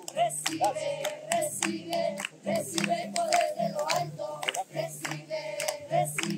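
A congregation singing a praise song together and clapping along in time, over low sustained bass notes.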